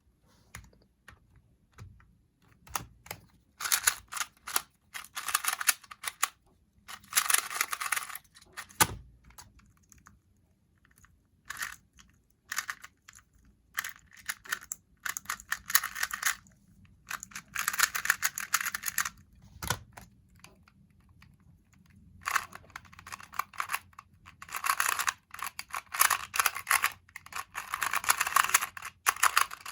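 2x2 speed cubes being turned fast: rapid bursts of plastic clicking, broken by short pauses. A single knock comes about nine seconds in and again about twenty seconds in as a solved cube is dropped.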